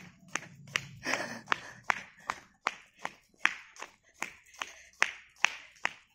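Brisk footsteps on asphalt: sharp, even slaps about two and a half a second, with a short rustle about a second in.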